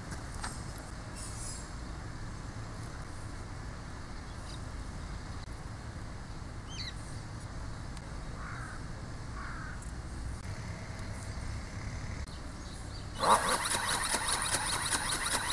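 A FalcoHobby 22iV ornithopter's geared brushless motor starts near the end, with a sudden, fast, rhythmic clatter of its flapping wings and a whine from the gears. Before that there is only a low, steady outdoor rumble.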